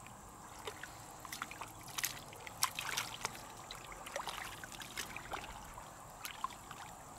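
Soft, irregular small splashes and wet clicks of muddy water as hands grope through the mud for an escaped eel.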